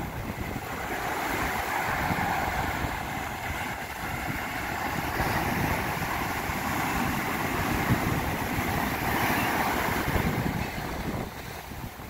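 Ocean surf breaking and washing in around rocks: a continuous rushing hiss of waves and foam that swells about a second in and eases off near the end.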